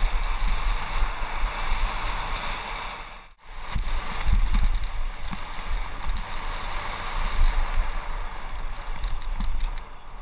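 Wind rushing over a helmet camera's microphone during a fast mountain-bike descent, with the low rumble and knocks of the bike jolting over a dirt trail. The sound cuts out suddenly for a moment a little over three seconds in.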